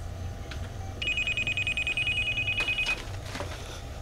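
A telephone ringing: one fast-trilling ring about two seconds long, starting about a second in, over a steady low hum, with a few light clicks near its end.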